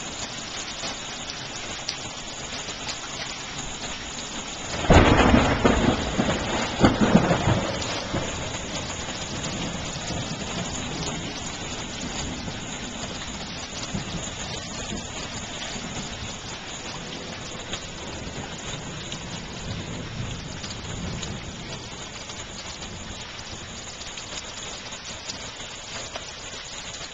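Heavy rain pouring steadily in a thunderstorm. About five seconds in, a loud thunderclap breaks in and rumbles off over the next few seconds.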